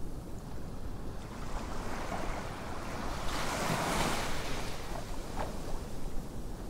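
Wind buffeting the microphone in a steady low rumble, with a rushing gust that swells up and dies away about two to five seconds in.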